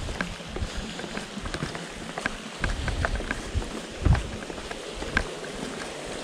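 Footsteps and the metal tips of trekking poles clicking irregularly on stone steps and paving, over a low rumble of wind on the microphone.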